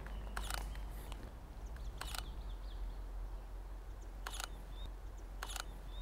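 Sony A7R II mirrorless camera shutter firing, about five or six sharp clicks at uneven intervals, some in quick pairs, as frames are taken one at a time.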